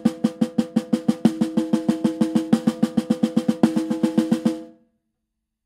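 Drumstick on a snare drum: a fast, even string of single strokes, about eight a second, played with the fingers so that the stick bounces. The strokes stop abruptly near the end.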